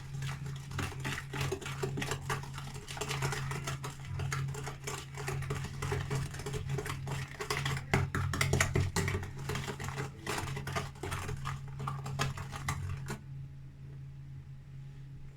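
A utensil stirring semolina batter in a bowl, a fast run of clicks and scrapes against the bowl that stops about thirteen seconds in. A steady low hum runs underneath.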